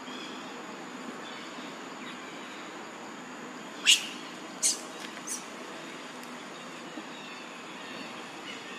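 Three short, sharp, high-pitched squeals from a baby macaque about four to five seconds in, the first the loudest and rising, the last the faintest, over a steady outdoor background hiss.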